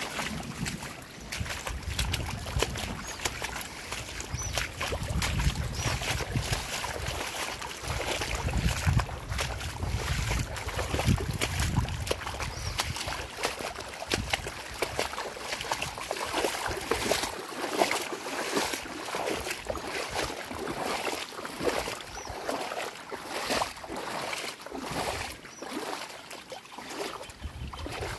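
Boots wading and splashing through shin-deep muddy floodwater, over the sound of runoff running across the ground. Wind buffets the microphone during the first half.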